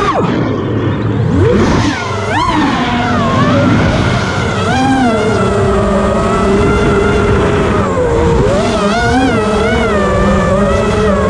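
Brushless motors and propellers of an FPV quadcopter, heard through its onboard action camera, whining in several stacked tones that rise and fall with throttle. The pitch drops sharply just after the start and wobbles up and down again later. Wind rush on the camera's microphone runs underneath.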